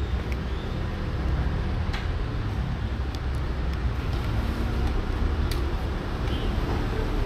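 Steady low rumble of background noise, with a few faint sharp clicks scattered through it.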